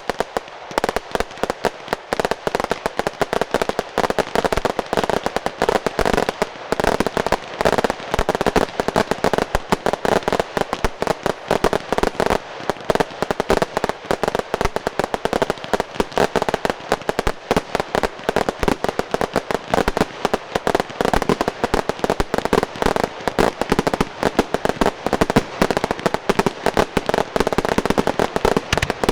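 Fireworks display going off in a dense, continuous barrage: many sharp bangs and crackles a second, with no break.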